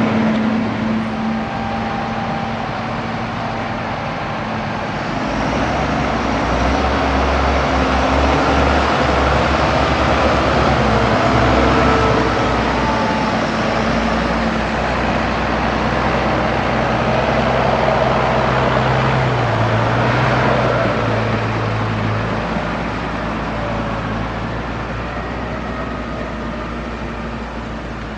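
Heavy diesel farm machinery, a self-propelled forage harvester and tractors, running steadily while chopping and hauling maize. A deeper low rumble swells about five seconds in and eases after about fourteen seconds.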